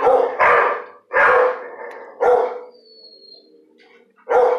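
A dog barking: four sharp barks about half a second to a second apart, a pause of about two seconds, then one more bark near the end. A faint steady tone sits underneath.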